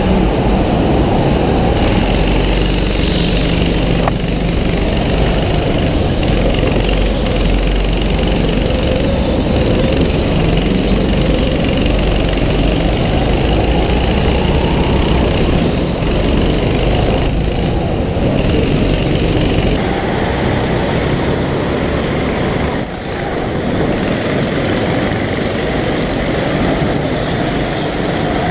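Onboard sound of a racing kart running flat out around an indoor track: its small engine keeps running at speed without a break. Twice in the second half there are brief high squeals, likely from the tyres.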